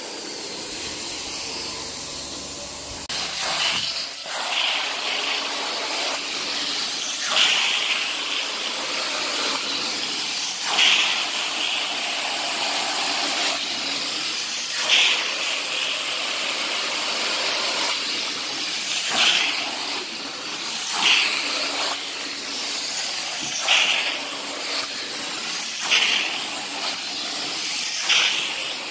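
Carpet-cleaning extraction wand hissing steadily as it sprays and sucks water through the carpet. The hiss grows fuller about three seconds in, then swells about every two seconds as the wand is drawn back and forth in strokes.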